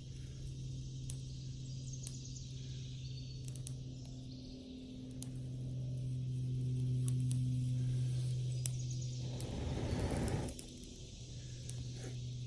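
Dry grass tinder bundle burning with faint scattered crackles, and a loud rush of breath blown into it about ten seconds in. A steady low hum runs underneath.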